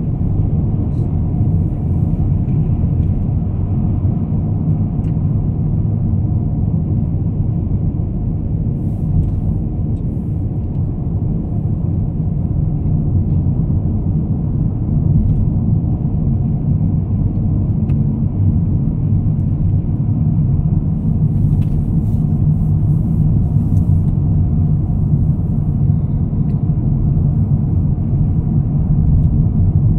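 Steady low rumble of a car driving at expressway speed, heard from inside the cabin: engine and road noise.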